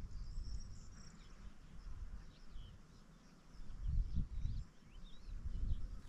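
Small songbirds giving short, high, scattered chirps, over low wind rumble on the microphone that swells about four seconds in.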